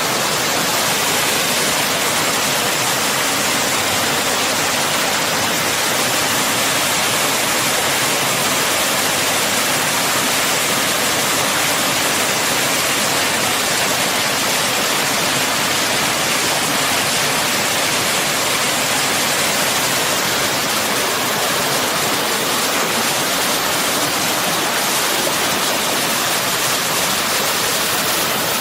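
Rushing water, a steady loud rush with no breaks.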